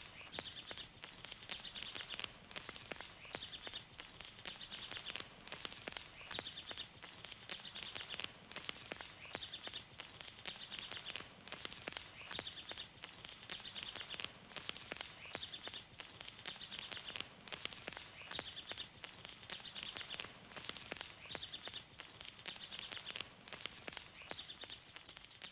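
Faint outdoor bush ambience: high chirping calls in repeated short spells, each under a second long, with scattered faint clicks.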